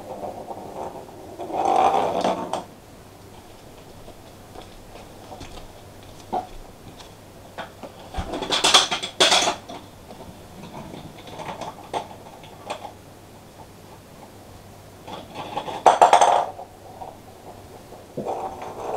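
Small plastic balls rattling and clattering along the plastic track of a toy marble run, in three louder bursts about two, nine and sixteen seconds in, with lighter single knocks between.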